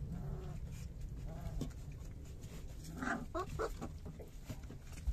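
Three-week-old puppies whimpering and squeaking: faint calls early on, then a quick run of four or five short high squeaks about three seconds in, over low rustling.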